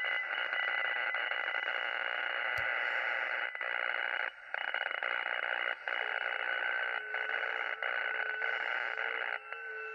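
Ham radio receiver putting out a steady noise of radio-frequency interference, cut briefly by a few short dropouts, with faint steady tones riding on it in the second half. The noise shows on several bands and antennas and stays with the house's power breaker off, so it is not coming from the house; the owner guesses a solar storm or aurora.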